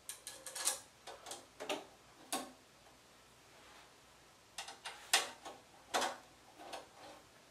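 Irregular small metal clicks and ticks as a screw and the threaded eye end of a metal stabilizing brace are handled and fitted by hand onto a 3D printer frame bracket, in clusters with a pause of about two seconds midway.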